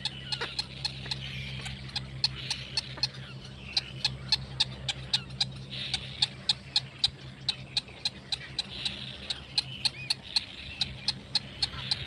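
Black-crowned night heron nestlings calling: a steady run of short, high clicking chirps at about four a second.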